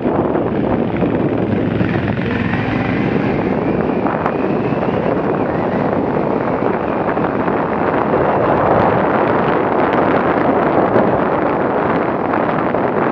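Enduro motorcycle riding along a dirt trail, its engine running steadily under way, heard through an action camera on the bike with wind buffeting the microphone.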